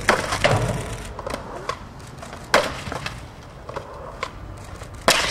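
Skateboard on hard ground: several sharp wooden cracks of the board slapping down, over the rumble of its wheels rolling.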